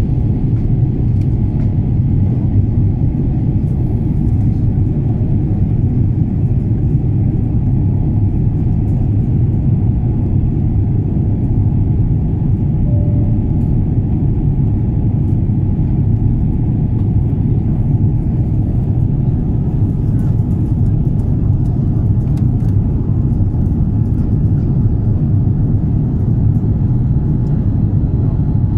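Steady low rumble inside the cabin of an Airbus A350-900 in flight after take-off: its Rolls-Royce Trent XWB turbofan engines and the airflow heard from a seat by the wing, with a faint steady hum above it.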